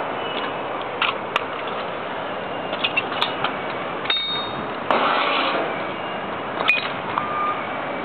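Wood fire burning under a thick steel slab, crackling with sharp pops. About four seconds in comes a brief high squeal, then a short louder rush of hissing.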